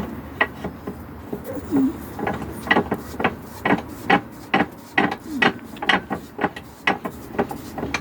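Repeated knocks and clicks of metal parts on the mini wood-turning lathe, about two a second, as a greased part is worked back into place. There are a couple of short squeaks in between.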